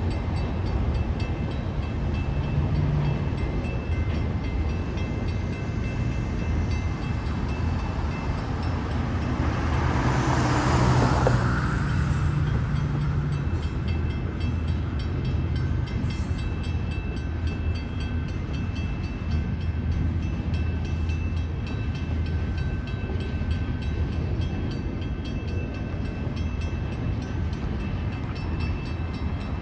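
Train rolling steadily past with a continuous low rumble of wheels on rail and faint regular clicking, plus thin high squealing tones. A louder rushing noise swells and fades about ten to twelve seconds in.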